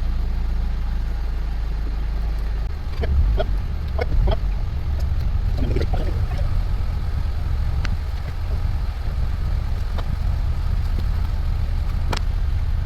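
A steady low engine rumble, like a car idling, with a few light clicks and knocks over it.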